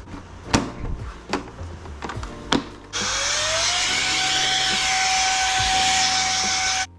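A few sharp clicks, then about three seconds in a small electric motor starts with a rising whine over a loud rushing noise, runs steadily for about four seconds and cuts off suddenly.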